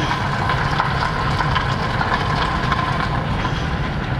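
Car driving slowly, heard from inside the cabin: a steady low rumble of engine and tyres on concrete, with a faint steady high tone above it.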